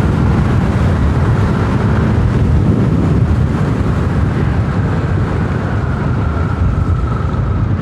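Wind buffeting the microphone over the steady engine and road noise of a Yamaha Aerox 155 scooter, a 155 cc single-cylinder, riding along at speed.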